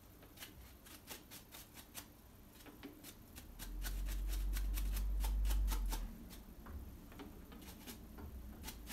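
Small clicks, ticks and scratches of hands cleaning a metal lathe chuck. A deep low rumble, the loudest sound, runs from about three and a half seconds in to about six seconds in.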